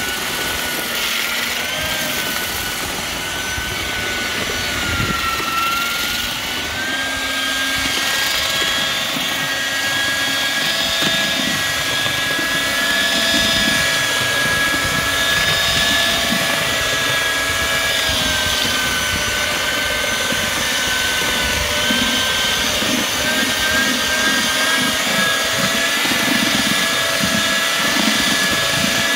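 Eibenstock twin-paddle electric mortar mixer running steadily, its motor whining with a pitch that dips and recovers a few times, while the paddles churn hot-mixed lime mortar in a galvanised metal dustbin.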